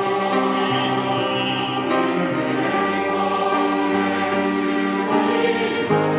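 Mixed church choir singing a Korean anthem in long held chords, on the line "나는 소리요, 빈들에서 외치는 소리요" ("I am the voice crying in the wilderness").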